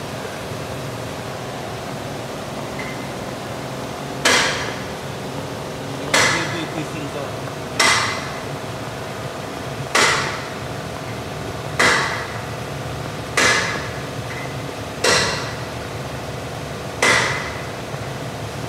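A hammer striking metal eight times at a slow, uneven pace, about one blow every two seconds starting about four seconds in. Each blow rings briefly, over a steady background hum.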